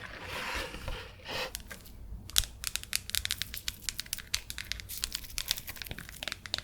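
Close-miked wet ASMR mouth sounds: a short breathy hiss, then from about two seconds in a dense run of rapid wet clicks and smacks.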